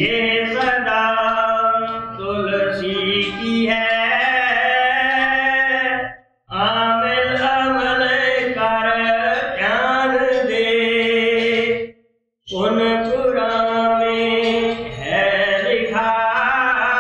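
A voice chanting a devotional hymn in long held notes, in three phrases separated by brief pauses for breath.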